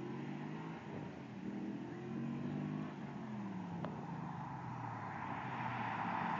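2000 Pontiac Trans Am's LS1 V8, breathing through BBK long-tube headers, an off-road Y-pipe and an aftermarket cat-back exhaust, accelerating from a distance. Its note climbs in pitch twice with a shift between, then drops as it eases off. The car grows louder near the end as it approaches.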